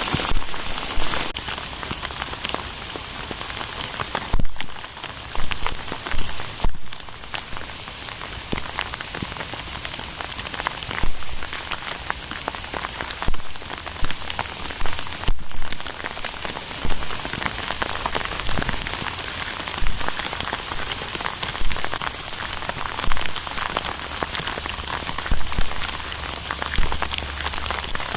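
Hail falling and striking hard surfaces: a dense, steady clatter of small impacts, with sharper, louder hits every second or two.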